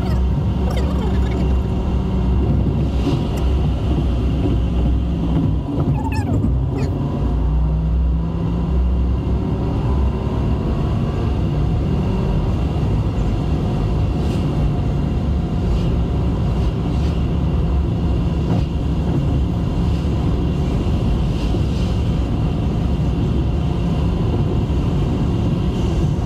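Car running along a road, heard from inside the cabin: a steady rumble of engine and tyre noise. The engine note rises slowly between about seven and twelve seconds in as the car picks up speed.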